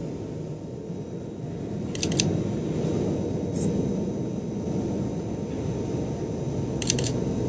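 Sony a7 III shutter clicking in quick bursts of a few shots, about two seconds in and again near the end, over a steady low rumble of background noise.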